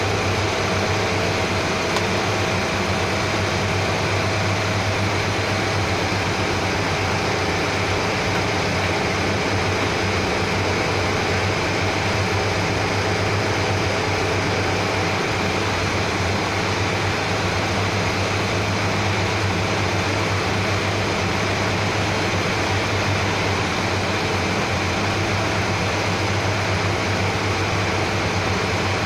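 Steady drone of running machinery: a strong low hum with an even hiss over it, like an air-conditioning or fan unit running.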